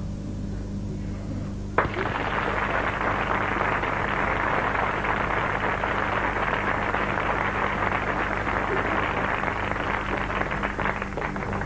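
Audience applause that starts abruptly about two seconds in and thins to scattered claps near the end, over a steady low electrical hum.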